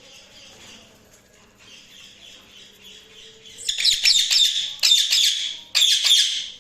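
Budgies chirping and chattering, soft at first, then a loud run of dense chirps and squawks from a little past halfway to the end, with one brief pause.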